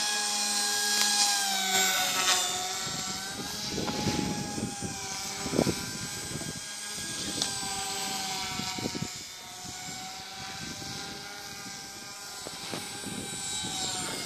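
Align T-Rex 150 micro electric RC helicopter in flight: the high whine of its brushless motors and spinning rotor, sagging in pitch and recovering as the blades load up in manoeuvres. Wind rumbles on the microphone in the middle.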